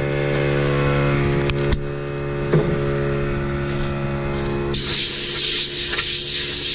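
A steady machine hum with a few clicks. About five seconds in, a loud hiss of compressed air starts and keeps going: an air blow gun blowing the debris out of the reamed and buffed plug hole in a motorcycle tire.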